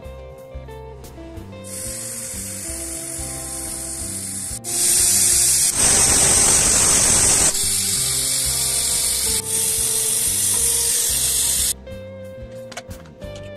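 Stovetop pressure cooker's weighted whistle valve blowing off steam in a loud hiss, a sign that the cooker is up to pressure. The hiss starts about two seconds in, is strongest in the middle, and cuts off sharply a couple of seconds before the end, over background music.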